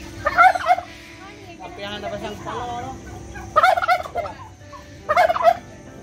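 Turkeys gobbling: three loud gobbles of about half a second each, one near the start, one in the middle and one near the end, with quieter calls between them.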